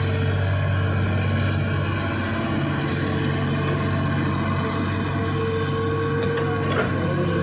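Hitachi excavator's diesel engine running steadily, with a steady higher whine over it that grows stronger past the middle.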